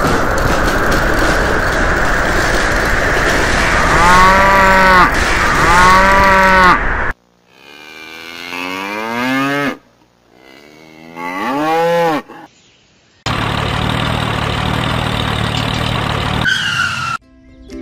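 Cattle mooing: two short calls about four and six seconds in over a steady noisy background, then two longer moos that slide in pitch between about seven and twelve seconds. From about thirteen seconds a steady mechanical drone runs and cuts off suddenly near the end.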